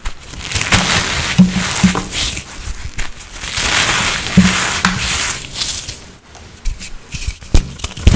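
Dry blocks of reformed coloured powder being crushed, crunching and crumbling in repeated strokes with a few soft thumps. It goes quieter a little past the middle, then a few sharp crackles come near the end.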